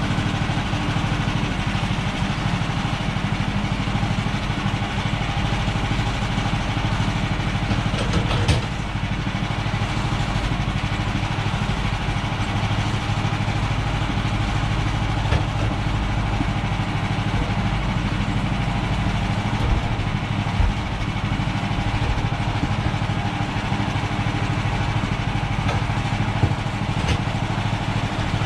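Gas engine of a Woodland Mills portable bandsaw sawmill running steadily, with a few faint clicks.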